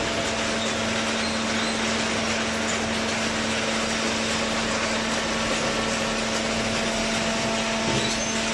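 Small hydraulic cardboard baler's power unit running with a steady hum over a wash of mechanical noise.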